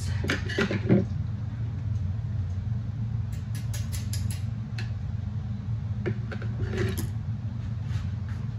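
Wire mesh strainer, chopsticks and a metal utensil clinking and tapping against a wooden plate as drained noodles are tipped out, in scattered light knocks with a sharper one about a second in. A steady low hum sits underneath throughout.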